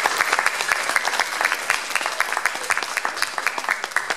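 Audience applauding: many hands clapping densely and without pause.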